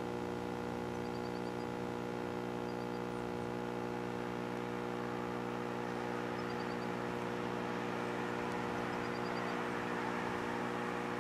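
Steady machine hum made of several held low tones, with a few faint, short high chirps.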